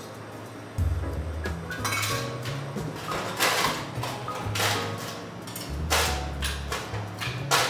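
Metal cocktail tin and shaker clinking as a bar spoon stirs, then ice cubes clatter into a metal shaker in several sharp strikes, the loudest near the end. Background music with a bass line plays underneath.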